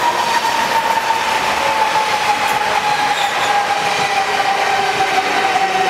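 Electric train running on the tracks: loud, steady rolling noise with a high whine that slowly drops in pitch throughout.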